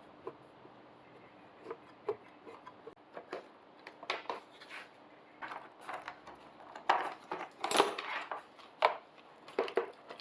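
Irregular clinks, clicks and knocks of hand tools and small parts as fasteners are worked loose on a motorcycle's rear end. They start sparse and grow busier from about four seconds in, with the loudest clatter around seven to eight seconds in.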